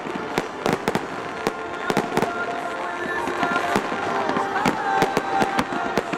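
Fireworks going off in a rapid, irregular series of sharp bangs and crackles, several a second.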